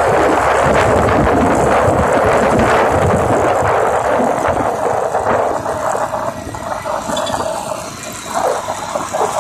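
Wind buffeting the microphone over a motorcycle running along the road, loud for the first half and easing off after about five seconds.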